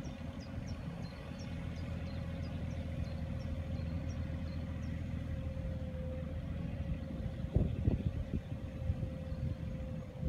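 Mini excavator's engine running steadily with a low rumble and a steady hum, heard from a distance. A few knocks sound about three-quarters of the way through.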